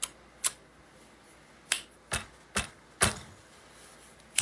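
A run of about seven sharp clicks or smacks made by a person close to the microphone. They are irregularly spaced, some coming in quick pairs about half a second apart.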